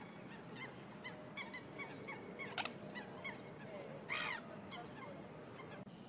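Waterfowl calling: a run of short honking calls, several a second, with a brief loud burst of noise about four seconds in.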